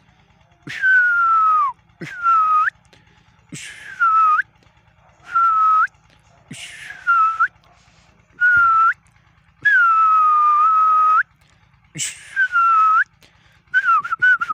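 A person whistling a series of about nine short notes, each sliding down in pitch and flicking up at the end, with short pauses between them.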